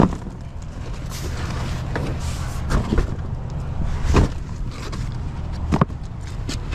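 Large cardboard boxes being picked up and handled: rustling scuffs of cardboard with a sharp knock at the start and a few thumps about three, four and six seconds in, over a steady low rumble.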